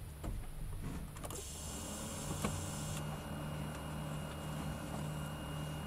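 BMW E36's electric heater blower and electric heater water valves running with the ignition on and the engine off: a steady electric motor hum that starts about a second and a half in.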